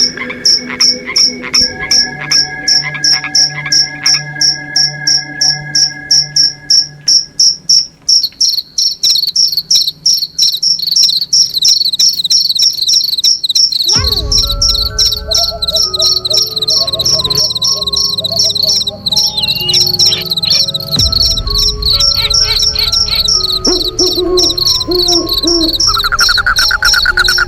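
Loud, high insect chirping, like a cricket, in rapid even pulses that run together into a continuous shrill trill about a third of the way in. From about halfway, steady lower tones and a deep low rumble join underneath.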